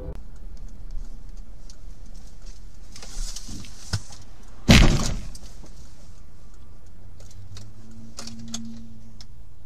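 Car engine and road noise, broken about five seconds in by one sudden loud crash as the car and a motorcycle collide, followed by a few light clicks.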